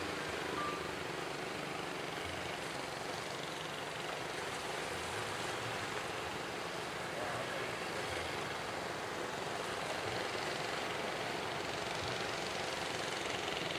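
Steady roar of surf and wind at a river mouth, with a faint engine drone from the fishing boats underneath.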